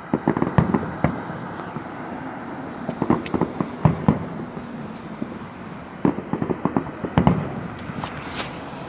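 Fireworks going off: clusters of sharp pops and crackles in three bursts a few seconds apart, over a steady hiss.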